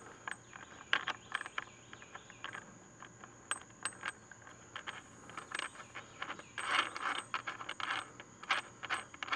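Light metallic clinks and clicks of a steel washer and nut being fitted onto a 1/2-inch carriage bolt by hand. They come in scattered runs, busier past the middle.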